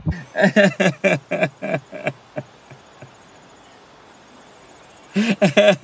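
A man laughing hard in quick, evenly spaced bursts for about two seconds, then a pause, then another short run of laughter near the end. A faint steady high whine runs underneath.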